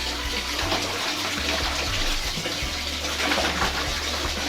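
Water sloshing and running steadily, with a low hum underneath that cuts in and out every second or two.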